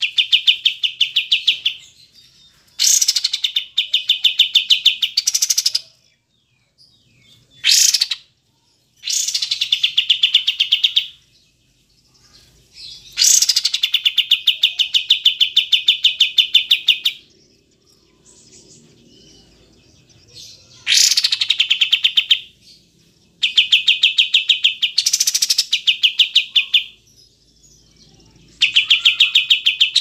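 Kapas tembak bulbul singing in repeated fast rattling trills. The phrases come in about eight bursts of one to four seconds each, some opening with a quick rising note, with short pauses between them.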